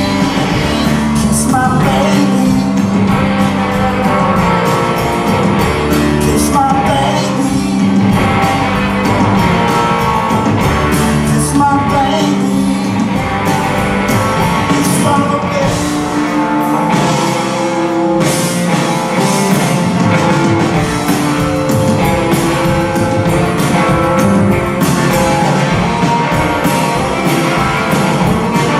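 Rock band playing live: electric guitars and drums with a sung lead vocal, loud and continuous.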